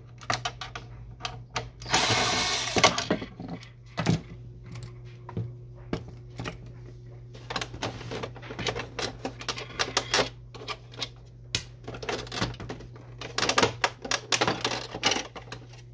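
A cordless drill-driver runs for about a second, backing out a screw from the printer's plastic housing. Light plastic clicks, taps and rattles follow as the printer's cover parts are handled, busiest near the end, over a steady low hum.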